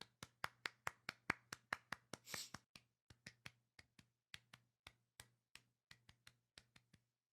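Faint quick clicks or taps, about five a second at first, then sparser and fading, over a faint low hum.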